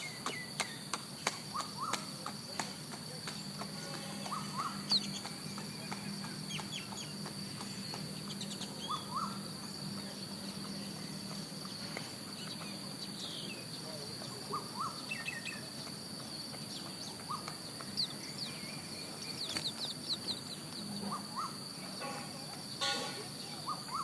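Small birds giving short, scattered chirps in twos and threes. A run of sharp taps fills the first few seconds, and a steady high-pitched hum runs underneath.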